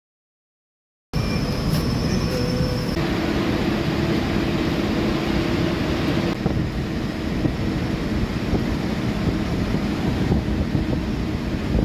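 Silent for about the first second, then steady machine-shop noise: a low rumble and hiss of machinery running, with a faint steady hum for a few seconds.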